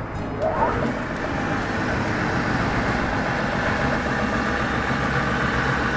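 Geared pillar drill's 2 cv electric motor started up: a short rising whine about half a second in, then running steadily with the spindle turning.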